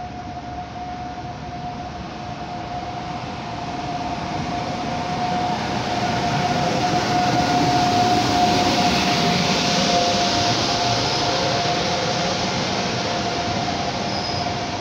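PKP Intercity Siemens ES64U4 (class EU44 Husarz) electric locomotive and its passenger coaches passing along a platform. The rumble of the train grows as it approaches and is loudest about eight seconds in as the locomotive goes by, then the coaches roll past. A steady high whine is heard throughout.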